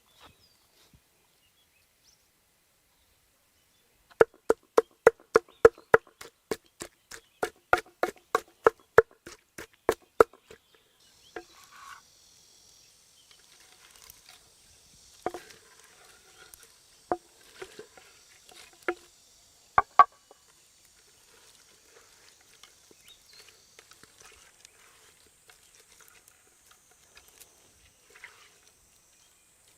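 A fast, even run of sharp knocks, about four a second, lasting some six seconds. After it comes a faint steady high hiss, with a few scattered knocks and clicks.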